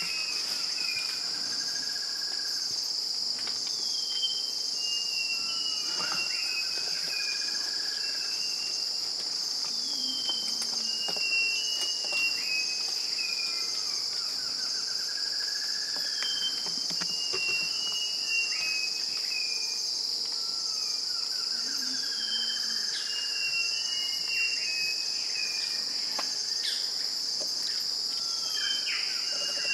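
A steady, high-pitched insect chorus, with a bird calling every few seconds: a quick run of short falling whistles and a buzzy note lower down.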